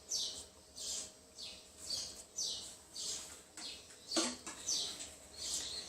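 A small bird chirping over and over in the background: short, high, falling chirps at about two a second.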